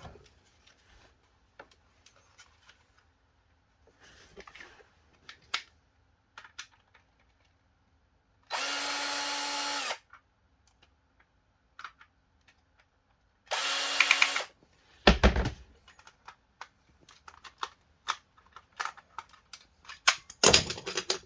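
Small electric screwdriver running in two short bursts, the first about a second and a half long and the second about a second, likely undoing the toy's battery-cover screw. Scattered handling clicks and rustling of packaging come between, with a thump just after the second burst.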